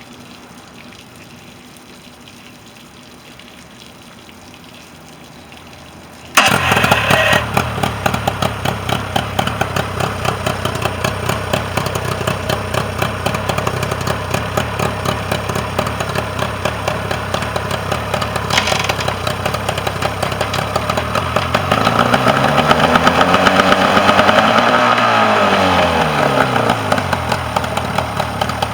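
Mercury 40 hp outboard motor catching and starting abruptly about six seconds in, then idling with a steady rapid pulse. About two-thirds of the way through it revs up and back down before settling to idle again. Before it starts there is only a faint steady hiss.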